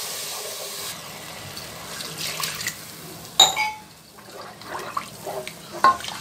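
Hot frying masala's sizzle dying away in the first second after water is poured into the pan, then a wooden spoon stirring the watery gravy. There are two sharp knocks, the louder about halfway through and another near the end.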